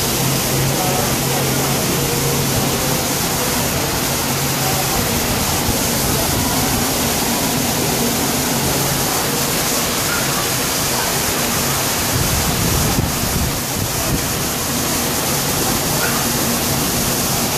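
Waterfall pouring down a rock wall into a pool, a steady rush of falling water.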